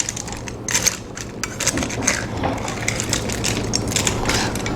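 A utensil stirring and scraping through a packed pressure-cooker pot of chicken, egg noodles, vegetables and curry sauce: a run of irregular scrapes, squelches and clinks against the pot.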